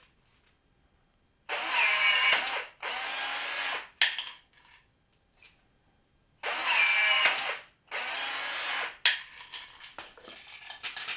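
Gesipa accuBird cordless rivet tool setting 4×10 mm aluminium rivets: its motor whines twice, each time in a louder stretch followed by a quieter one and ending in a sharp click. Light clattering follows near the end.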